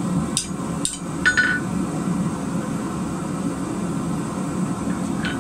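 Hand hammer striking a steel bar held in tongs on an anvil: three quick blows in the first second and a half, the third ringing briefly, then one more near the end. A steady low hum runs underneath.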